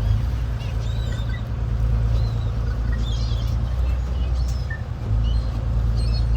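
Boat engine running with a steady low drone, which drops briefly about five seconds in. Short high bird chirps are scattered over it.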